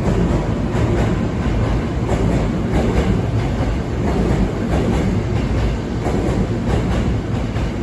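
Hankyu electric train running past, a loud steady rumble of wheels on rails with repeated clacks as the wheels cross rail joints.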